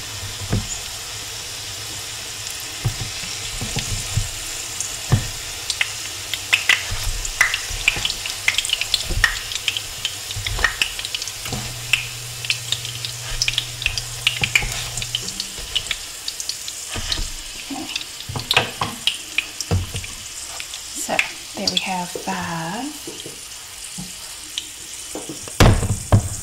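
Salmon patties frying in hot oil in a cast-iron skillet: a steady sizzle with frequent sharp crackles and pops. It is joined by the occasional scrape and tap of spatulas as the patties are lifted out of the pan.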